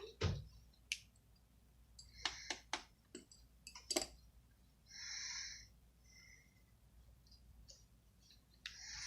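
Sharp clicks and taps of small tools and parts being handled during a phone screen repair, with two short scraping sounds, one about five seconds in and one near the end.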